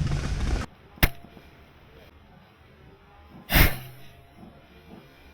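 Two shots from a skirmish-game gun: a sharp crack about a second in, then a louder, slightly longer pop at about three and a half seconds. Just before the first, a loud noisy stretch cuts off suddenly.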